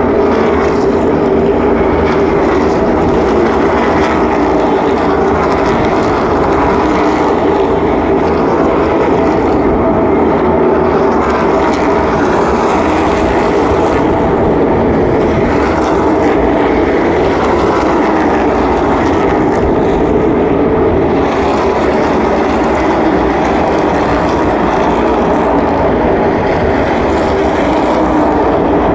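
A field of NASCAR Cup stock cars running at speed around the oval, their V8 engines making one loud, steady drone that does not let up.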